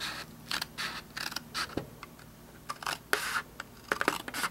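Scissors cutting through manila folder card: a series of irregular snips and scrapes of the blades on the card.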